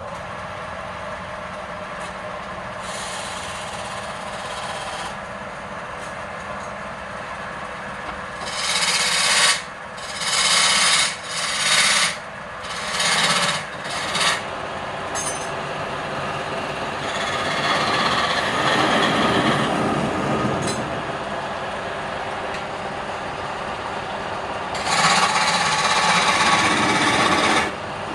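Wood lathe running steadily while the spinning workpiece is worked in rasping passes. There are five short passes in quick succession about a third of the way in, and longer ones later.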